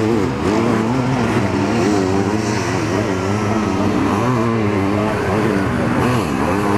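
Motocross sidecar outfits' engines running hard as they race over the dirt track, the revs rising and falling again and again as the throttle opens and closes.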